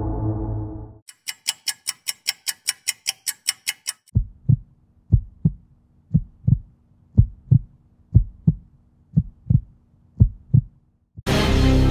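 Soundtrack effects: fast clock-like ticking, about five ticks a second, gives way to a slow heartbeat of paired low thumps about once a second over a faint steady hum. A gong-like tone dies away at the start, and music comes in loudly near the end.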